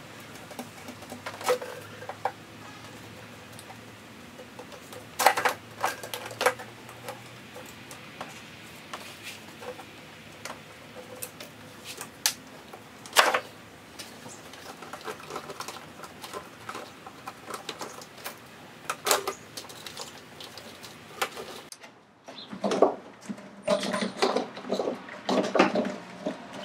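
Scattered sharp clicks and knocks of plastic engine-bay parts handled by hand as electrical connectors and vacuum hoses are unclipped around the diverter valves of a BMW N54 engine. The clicks come a few seconds apart at first and turn into a quicker run near the end.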